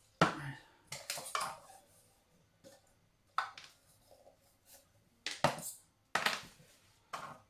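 Small metal camping cook-set pans and lid being handled, clinking and clattering against each other in a run of separate clanks.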